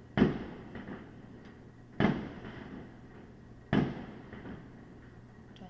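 Fireworks going off: four sharp bangs roughly two seconds apart, each dying away over about a second.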